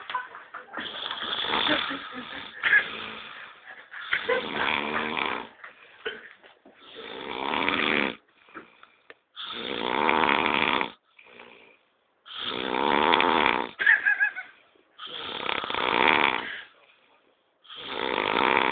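Snoring in a slow, even rhythm: seven snores, each a second or two long, coming about every three seconds with short quiet breaths between.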